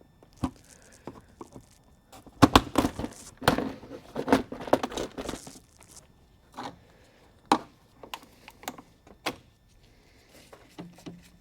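Clatter of hand tools and parts being handled: a quick run of sharp clicks and knocks starting about two seconds in and lasting about three seconds, then a few single knocks spaced about half a second to a second apart.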